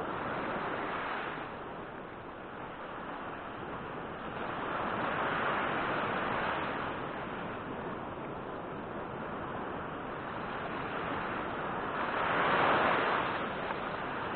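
Small ocean waves breaking and washing up a sandy beach, a steady wash of surf that swells louder twice, about five seconds in and again near the end.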